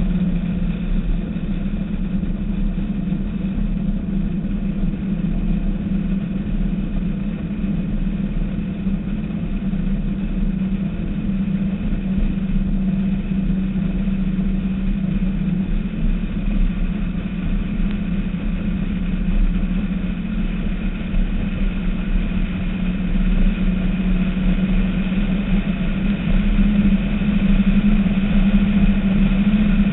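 Skater catamaran powerboat's engines running steadily under way, a constant deep drone over a haze of wind and water noise, growing a little louder near the end.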